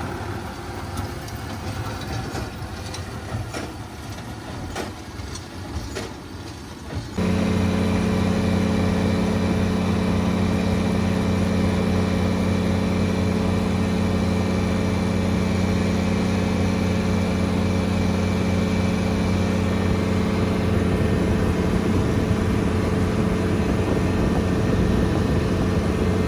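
An engine running: for the first seven seconds an uneven engine sound with scattered clicks and knocks, then a sudden switch to a louder, steady, low engine hum that holds.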